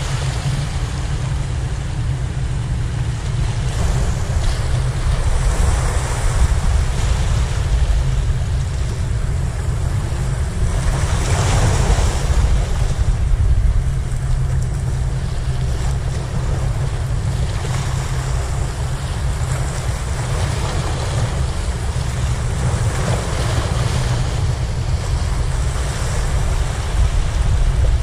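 Sea waves washing and breaking against the rocks of a harbour breakwater, swelling in surges every few seconds, over a steady low rumble of wind on the microphone.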